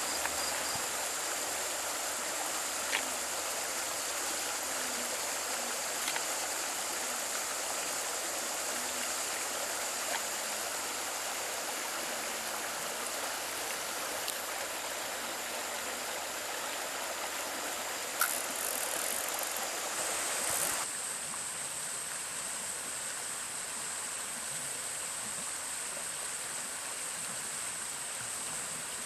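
A mountain stream running steadily, with a thin, steady high-pitched tone above it and a few faint clicks. About two-thirds of the way through the rushing water drops off abruptly, leaving a quieter flow with the high tone still there.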